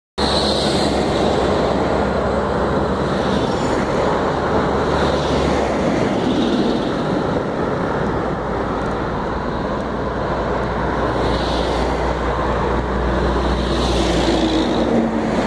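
Highway traffic noise: cars and trucks passing close by, a steady rush of tyres and engines with a low rumble.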